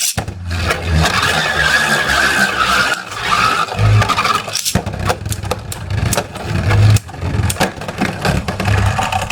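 Two Beyblade spinning tops, one of them 3D-printed, spinning and clashing in a plastic stadium: a rapid, irregular run of sharp hits and scraping, with a high whirring whine over the first few seconds.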